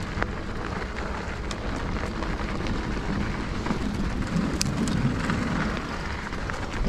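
Mountain bike tyres rolling and crunching over packed snow, with scattered clicks and rattles from the bike. About halfway through the tyres briefly rumble over the boards of a wooden boardwalk.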